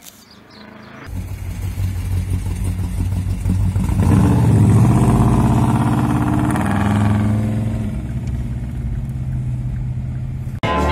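A car engine running and accelerating. It grows louder and rises in pitch about four seconds in, then settles to a steady drone and stops abruptly near the end.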